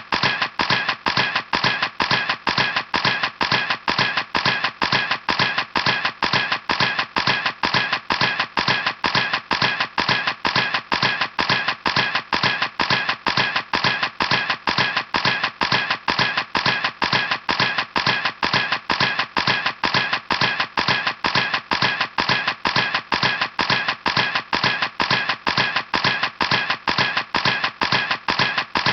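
Camera shutter clicking over and over in an even, unbroken series, about three to four sharp clicks a second.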